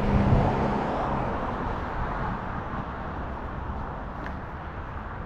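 A car passing on the street, its tyre and engine noise loudest at the start and fading steadily as it drives away.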